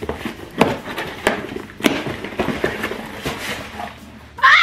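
Scissors cutting through the packing tape of a cardboard shipping box, then the flaps pulled open, heard as a run of short sharp scrapes and rustles. Near the end, a loud, high-pitched vocal exclamation with a gliding pitch.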